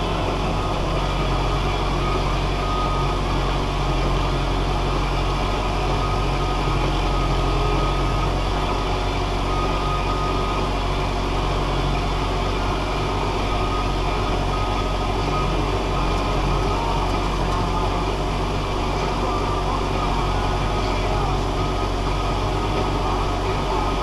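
Valtra N91 tractor's diesel engine running steadily under load while pulling a plough, heard from inside the cab as an even, unbroken drone.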